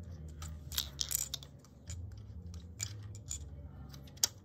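Plastic LEGO pieces clicking and rattling as a loose wheel is pressed back onto a LEGO truck: a string of small irregular clicks, with one sharper click near the end.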